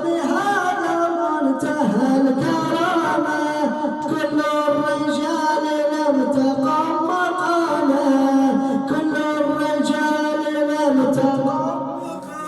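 A man singing a long, drawn-out melodic line of Arabic devotional chant, the pitch winding up and down with few breaks, dropping off briefly near the end.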